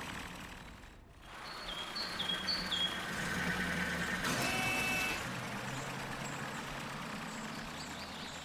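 Cartoon truck engine running steadily as the tow truck and fire truck drive, with birds chirping; about two seconds in come three quick two-note chirps, each dropping in pitch.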